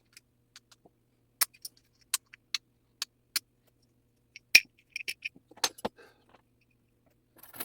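Sharp, small metallic clicks and taps from clock parts and tools being handled on the bench, spaced about half a second apart at first, with the loudest about halfway through and a quick cluster just after.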